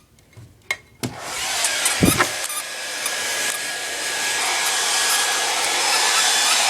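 A few short clicks, then a hair dryer switches on about a second in and runs steadily with a hissing rush of air that builds over the next few seconds. A single low thump comes at about two seconds.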